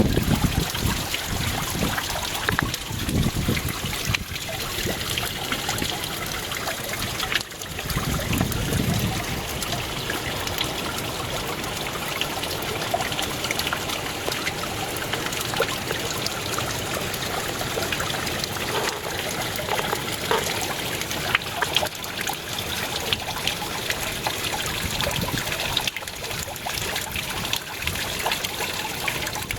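Water of a small stream waterfall splashing and trickling steadily over rock.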